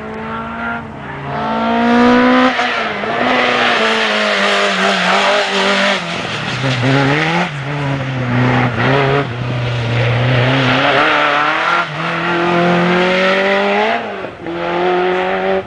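Race-prepared hatchback's engine revving hard through a slalom run. The note climbs under acceleration, then drops sharply several times as the driver lifts or shifts, and sits lower for a stretch in the middle.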